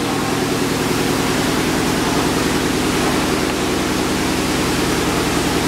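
Steady machinery noise: an even rushing hiss over a low, constant hum, unchanging throughout.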